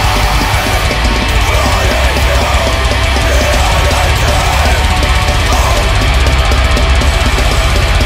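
Blackened metalcore: a dense wall of distorted guitars over fast programmed drums, loud and steady.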